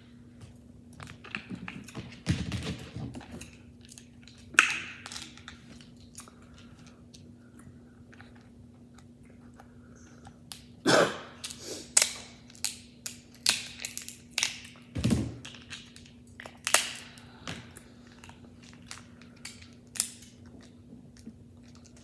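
Close-up eating sounds: chewing seafood with wet mouth clicks, mixed with crab and lobster shell being pulled apart and picked at. The clicks and crunches come irregularly, busiest in the second half.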